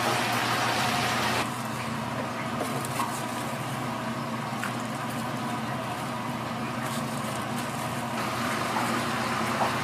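Steady commercial-kitchen background of a low machine hum and an even hiss, with a few light clicks of food being handled. It drops in level about 1.5 s in and rises again near the end.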